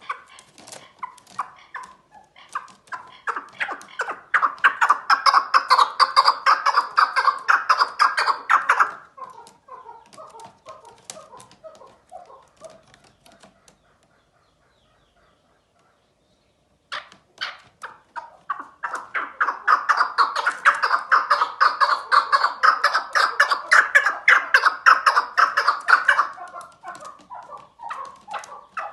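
Chukar partridge calling: two long bouts of rapid, repeated chuck notes, each growing louder as it gets going, with a few seconds of quiet between them.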